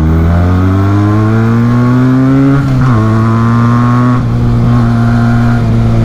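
Onboard sound of a Benelli Tornado 302R's parallel-twin engine accelerating hard, its pitch rising steadily, then dropping with an upshift about two and a half seconds in and running on at a steady pitch.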